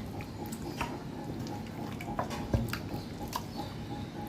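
Hands squishing a wet spice-and-yogurt marinade onto raw whole chickens, with scattered small wet clicks and ticks.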